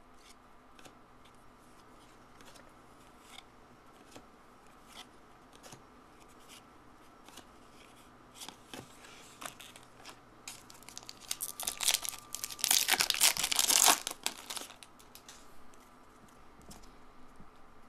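Trading-card pack wrapper being torn open and crinkled, a loud crackling run lasting a few seconds just past the middle, with light ticks and taps of cards being handled before and after.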